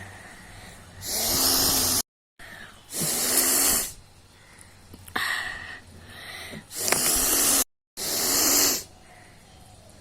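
A woman blowing her nose hard: four strong, noisy blasts of air of about a second each, with a weaker one in the middle. The sound drops out abruptly to silence twice for a moment.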